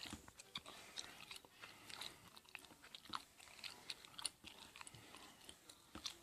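Near silence with faint, irregular clicks and crackles close to the microphone.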